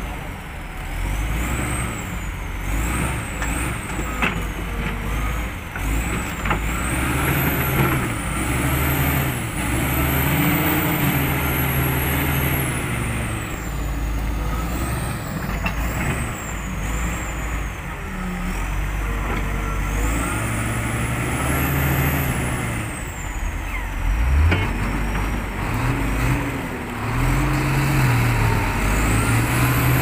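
A crawler bulldozer's diesel engine working hard as its blade pushes a log-laden logging truck from behind through mud, the revs rising and falling repeatedly. A high whine rises and falls along with the revs.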